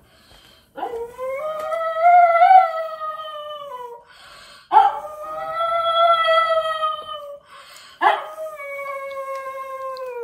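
Pug howling: three long howls of two to three seconds each. Each one starts abruptly and drops slightly in pitch as it trails off.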